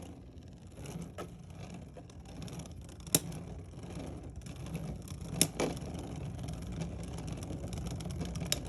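Beyblade X tops spinning against each other in a plastic stadium: a steady whir broken by sharp clacks as they collide, the loudest about three seconds in and another about five and a half seconds in.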